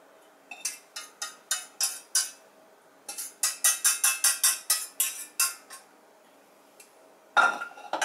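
A utensil scraping the last of a gorgonzola cream sauce out of a small metal saucepan in quick strokes, about four or five a second, in two runs. Near the end comes one loud clatter as the pan is set down.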